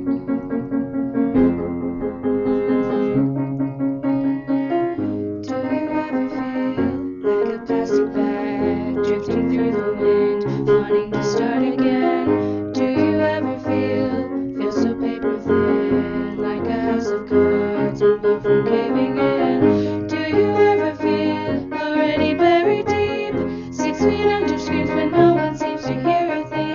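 Piano accompaniment with female voices singing soprano and alto parts together, the texture filling out about five seconds in.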